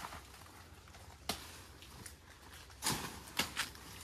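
A few faint, irregularly spaced knocks, four or five in all, over a quiet steady background.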